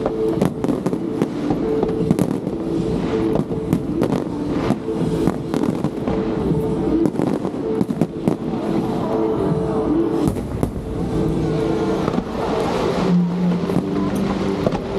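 Aerial fireworks bursting in quick succession, a dense run of sharp bangs and crackles, with music playing underneath.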